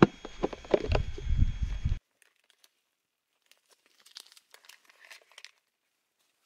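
Rustling and knocking of things being handled, over a low rumble. These stop abruptly about two seconds in. Then comes faint, scattered crinkling of a vacuum-sealed plastic food pouch being picked up from a container.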